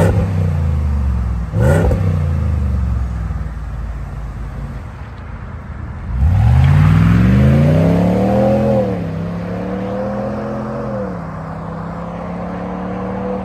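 Toyota pickup engine revving through an upgraded aftermarket exhaust: two quick throttle blips near the start, then a longer rev that climbs, holds briefly and drops back to a steady lower speed.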